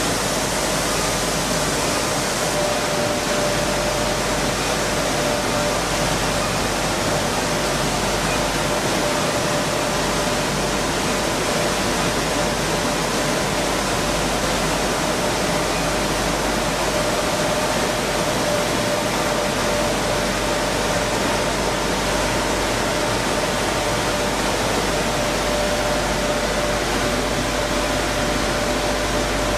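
Grain milling machine running: a steady, unbroken rushing noise with a faint constant whine and a low hum underneath.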